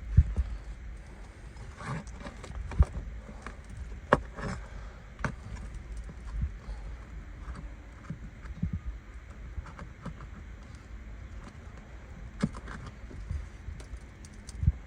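Irregular clicks, taps and scrapes of a flat pry bar and asphalt roof shingles being worked loose by hand, over a low rumble.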